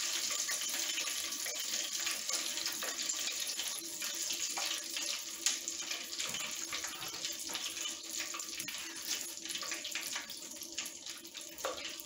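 Hot frying oil in a deep pot sizzling, a steady hiss full of small crackling bubbles that slowly eases off.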